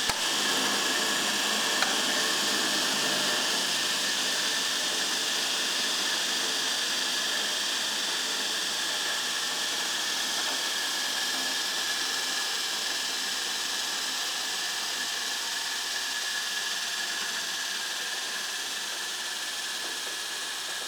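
REMA DP30 double-pedestal belt grinder and wire brush/buffing wheel machine running steadily under its electric motor, a hissing whir with a faint steady whine, slowly getting quieter.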